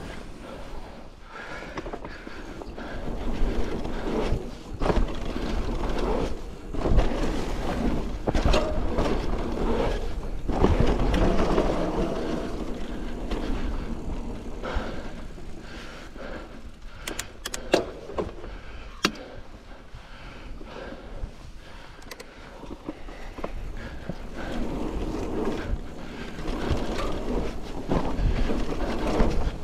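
Hardtail mountain bike ridden over dirt jumps and grass trail: tyres rumbling on the ground, with the bike rattling and knocking over bumps and landings, and heavy wind rumble on the microphone.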